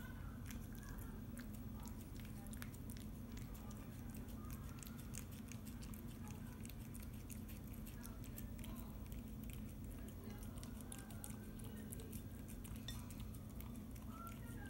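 A cat chewing and licking wet pâté cat food: many small, quick, irregular clicks over a steady low hum.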